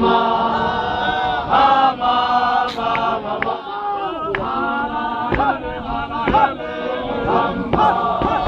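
Men of a ZCC Mokhukhu group chanting and singing together in harmony, with a few sharp thuds breaking through.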